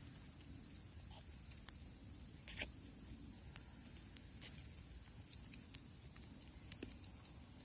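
Wood bonfire crackling faintly, with scattered sharp pops, the loudest about two and a half seconds in, over a steady high hiss.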